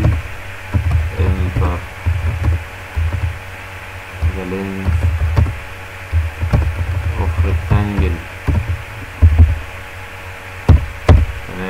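Computer keyboard clicks as a line of code is typed, between short low murmured vocal sounds from a man, over low thumping on the microphone.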